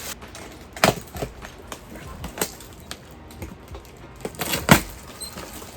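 A few irregular sharp clicks and pops from a silicone pop-it fidget toy being handled and pressed, the loudest about a second in and again near the end.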